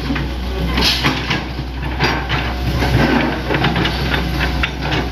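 Hitachi Zaxis 100 excavator's diesel engine running steadily, with frequent short clicks and knocks over the drone.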